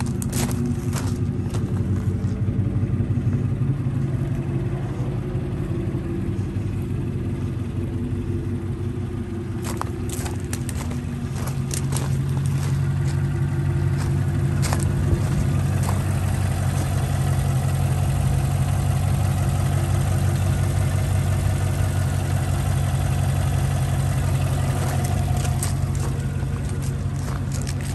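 Chevrolet Silverado 1500 pickup's gasoline engine idling steadily, growing somewhat louder about halfway through. Occasional crunching clicks of footsteps on gravel.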